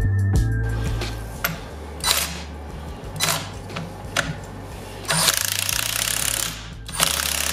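Cordless impact wrench hammering the clutch centre nut tight on a two-stroke motorcycle engine, in two bursts of rapid rattling: one about five seconds in, lasting under two seconds, and another starting about seven seconds in. Before them come a few separate clicks and knocks of the tool and parts being set in place.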